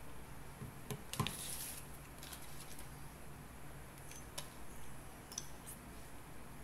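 A bar's foil-and-paper wrapper being handled and opened: a cluster of sharp clicks and a short crinkle about a second in, then a few fainter scattered clicks.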